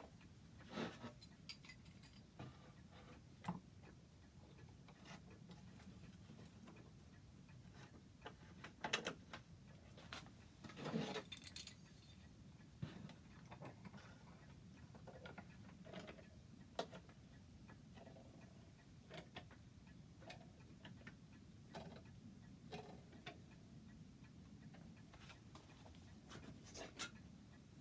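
Near silence with scattered, irregular faint knocks and taps; the loudest come about nine seconds in and in a short cluster around eleven seconds.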